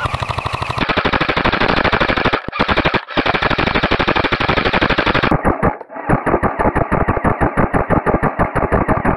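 Airsoft rifle firing on full auto: a fast, steady rattle of shots with two brief breaks about two and a half and three seconds in.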